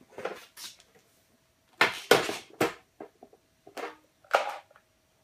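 Handling noise: a few short knocks, clatters and scrapes of objects being moved and set down on a hard surface, the busiest cluster about two seconds in.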